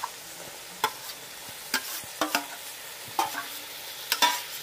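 Spiced onion-tomato masala sizzling in a metal kadai while a metal spatula stirs it, scraping and knocking against the pan about seven times.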